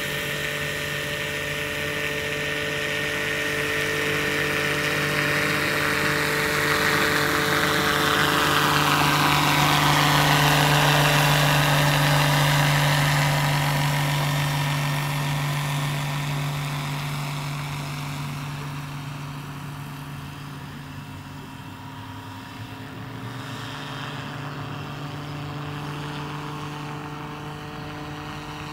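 Radio-controlled scale AS350 B3 Ecureuil model helicopter in flight: a steady rotor and drive hum under a whooshing rotor noise. It grows louder toward the middle, where the whoosh falls in pitch as the model goes by, then fades.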